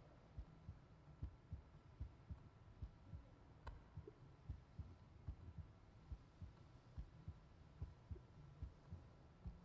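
Faint recorded heartbeat: a steady rhythm of low thuds over a quiet hum.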